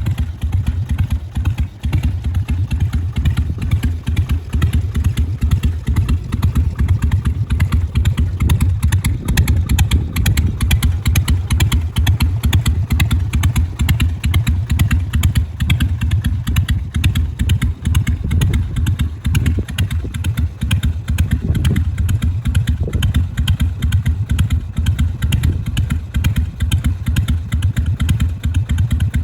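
Carbureted Harley-Davidson Sportster 883's air-cooled 45-degree V-twin idling steadily with its uneven 'potato-potato' beat.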